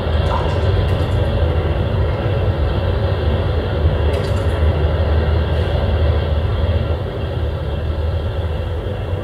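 A loud, steady low rumble with a hiss over it, dropping slightly in level about seven seconds in.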